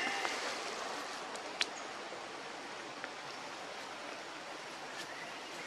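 Steady outdoor background hiss, even like running water or forest ambience, with one sharp click about a second and a half in.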